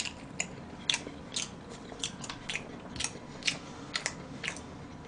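A person chewing a mouthful of chocolate cake with raisins: a string of short mouth clicks and smacks, about two a second.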